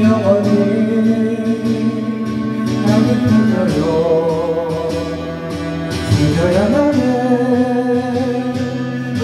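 Karaoke backing track of a ballad, with a voice singing along in long, wavering held notes.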